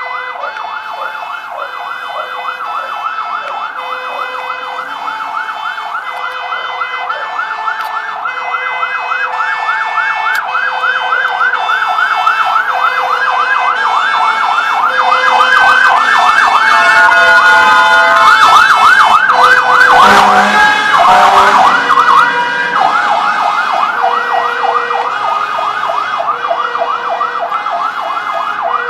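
Fire engine's electronic siren on a fast yelp, sweeping up and down about three times a second, with a lower tone sounding on and off. It grows louder as the truck approaches, changes pattern briefly at its loudest as it passes, then fades somewhat as it moves away.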